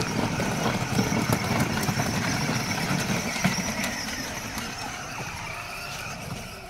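Ride-on electric toy jeep's motors and gearboxes whining steadily while its plastic wheels churn through muddy water and gravel. The rumble of the wheels is strongest in the first few seconds and eases off toward the end as the jeep pulls away.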